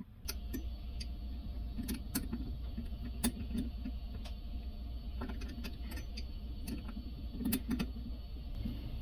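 Scattered small metallic clicks and taps as hand tools and faucet parts are handled, over a low handling rumble, during reassembly of a single-handle kitchen faucet.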